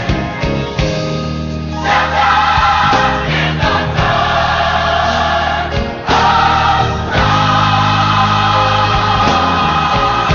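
Gospel choir singing with band accompaniment, the full choir swelling in about two seconds in and again about six seconds in.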